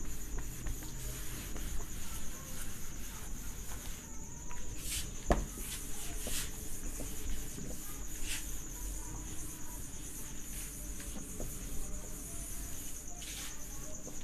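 Cloth duster rubbing marker off a whiteboard in several short swishing strokes, with one sharp knock about five seconds in. A steady high-pitched trill runs underneath.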